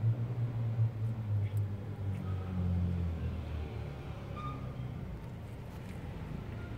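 Low, steady hum of a motor vehicle's engine, shifting pitch slightly and fading out a little past halfway.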